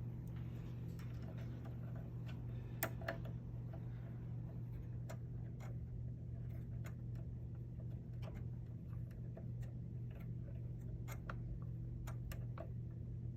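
Scattered small metallic clicks and ticks of screws being turned in by hand to mount a lens holder, the sharpest pair about three seconds in, over a steady low hum.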